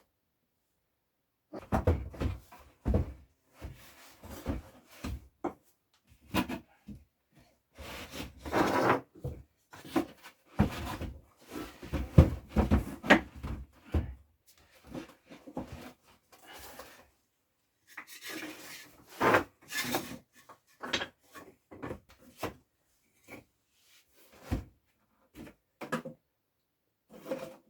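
Wooden cupboards being handled: irregular knocks, bumps and scraping as the cabinets are shifted and fitted into place.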